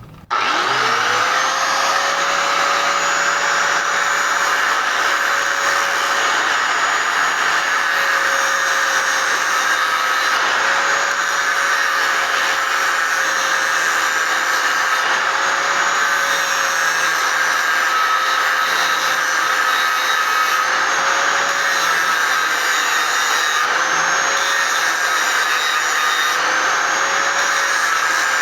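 Electric grinding tool spinning up and then running steadily, its motor whine dipping slightly now and then under load as it grinds the ends of the threads off a hinge pin to give them a taper.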